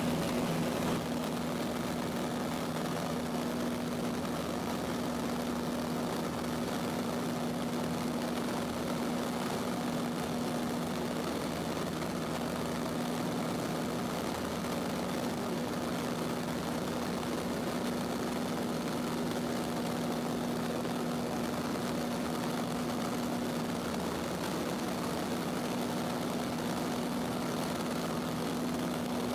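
Cessna 152's four-cylinder Lycoming engine and propeller running steadily in flight, heard inside the small cabin with a hiss of airflow.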